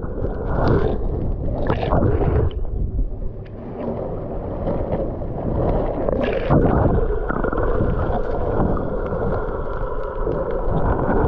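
Water sloshing and gurgling around the camera, heard muffled and low, with a few brief louder surges.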